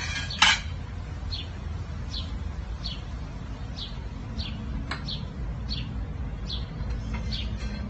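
A bird chirping over and over, a short falling high note about every three-quarters of a second. A sharp knock about half a second in is the loudest sound, with a lighter tap near five seconds, over a steady low rumble.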